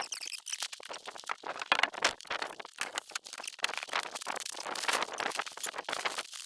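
A quick, irregular run of crunches and clicks.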